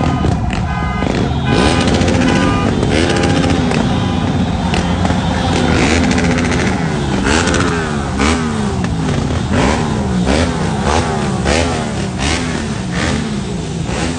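Motorbike and quad-bike engines revving over and over, their pitch rising and falling in quick succession, most clearly in the second half.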